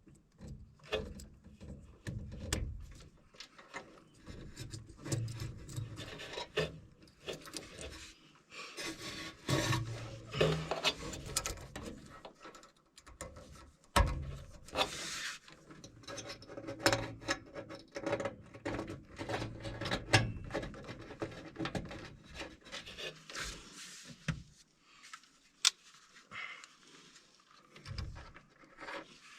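Irregular rubbing and scraping of hands working on a furnace while a replacement limit switch is wired in, broken by a few sharp clicks.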